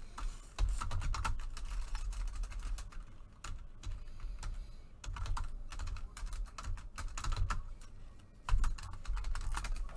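Typing on a computer keyboard: a quick, irregular run of key clicks, with one louder knock near the end.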